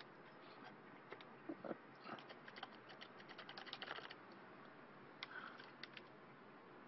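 Faint computer keyboard keys being tapped while scrolling through terminal output: scattered single clicks, with a quick run of taps about two to four seconds in.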